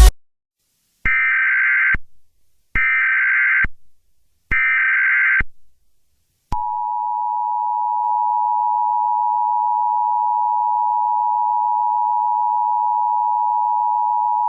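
Emergency Alert System alert tones: three short bursts of screeching SAME header data tones, about a second each with short gaps between them, then the long, steady two-tone EAS attention signal starting about six and a half seconds in.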